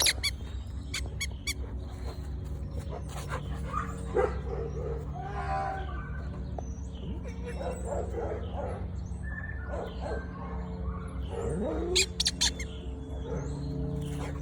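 A dog chewing a squeaky toy, making it squeak in quick runs near the start and again about twelve seconds in, with scattered shorter squeaks and sounds in between.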